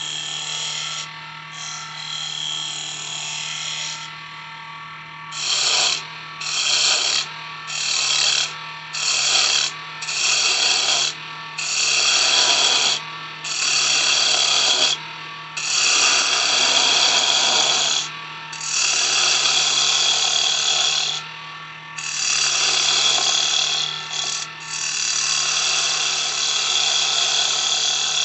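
Wood lathe motor humming steadily while a turning tool cuts a spinning cedar blank in repeated passes. The cuts come as short bursts about once a second, then as longer cuts of two to three seconds each.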